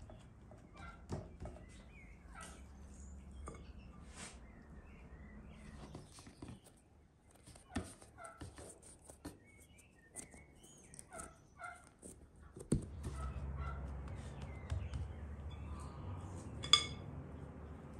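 Soft taps and pats of hands pressing and folding bread dough on a wooden board, with scattered faint bird and poultry calls in the background. A single sharp click stands out near the end.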